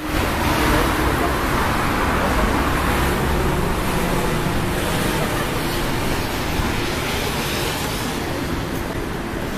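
City street traffic on wet roads: cars and a double-decker bus passing, a steady wash of engine and road noise that is heaviest in the low end for the first three seconds.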